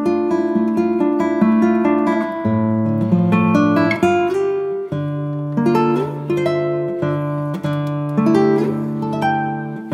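Instrumental background music on plucked acoustic guitar: picked notes that ring and fade, over changing bass notes.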